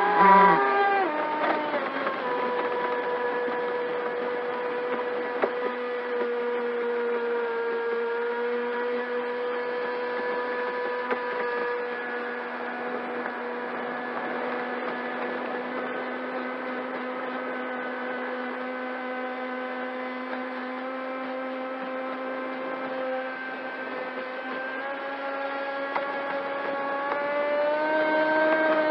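Pro Boat Sonicwake 36-inch RC boat's brushless electric motor whining, heard from a camera on board, over a hiss of water along the hull. The pitch drops as the throttle eases off in the first two seconds, holds steady at part throttle, then climbs again near the end as the boat speeds up.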